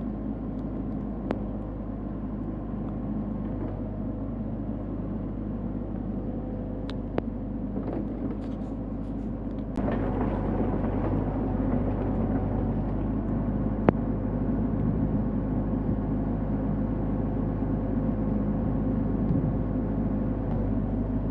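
Excavator engine running steadily, with a few sharp clicks and knocks; it gets louder about ten seconds in.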